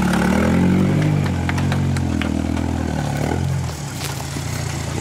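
Toyota 4Runner engine running at low trail-crawling speed, its pitch rising and falling with the throttle, with scattered small clicks of rocks and gravel. It drops in level about three-quarters of the way through.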